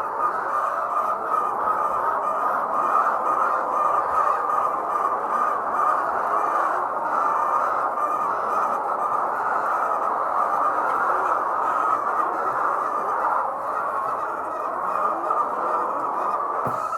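A large flock of layer hens clucking and calling together in a dense, continuous chatter.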